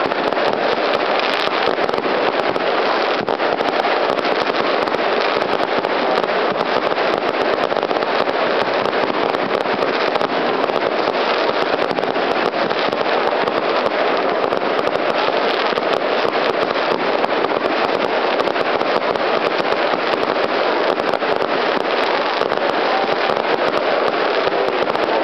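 Fireworks display going off without pause: a dense, steady crackle of many small pops and bangs.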